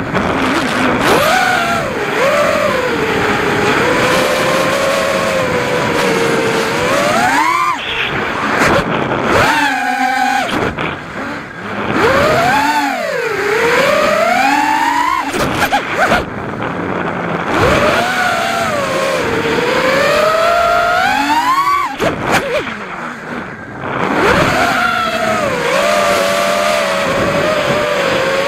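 Brushless motors and propellers of a Realacc XS220 FPV racing quadcopter, recorded from its onboard camera: a whine that keeps rising and falling in pitch with the throttle. Twice, about ten and twenty-two seconds in, the whine swoops up and then drops away briefly as the throttle is cut.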